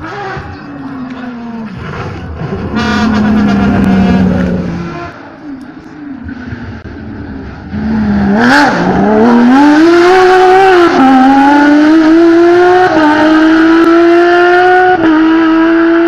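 Porsche 997 GT3 rally car's flat-six engine at full throttle. In the first few seconds the car is heard going past, loudest about four seconds in, then fading; from about eight seconds, after a sharp crack, it accelerates hard away from a corner, the pitch climbing and dropping back at three upshifts about two seconds apart.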